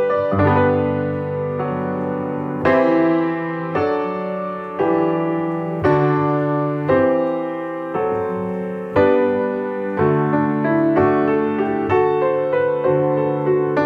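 Solo piano playing slow, sustained chords, with a new chord struck about every second and each one left to ring and fade.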